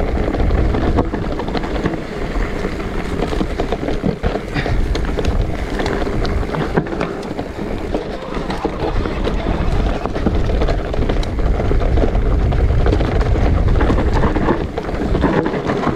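An electric mountain bike descending a trail: wind rushing over the microphone and tyres rolling over dirt and stones, with frequent small clicks and rattles.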